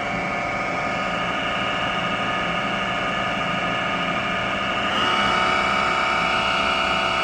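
Live milling spindle on a Hyundai CNC machine running with no tool fitted, a steady whine of several tones, set at 1,500 rpm. About five seconds in it steps up in speed and gets a little louder.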